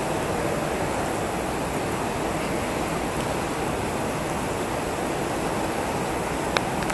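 Artificial rain in the Rain Room installation: water falling continuously from the ceiling onto the floor as a dense, steady hiss like heavy rainfall. A single sharp click near the end.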